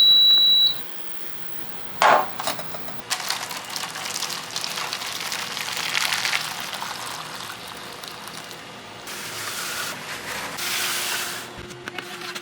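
A loud high electronic beep lasting about a second. A sharp knock follows about two seconds in, then a long run of glass and utensil clinks with liquid sounds, as in kitchen preparation.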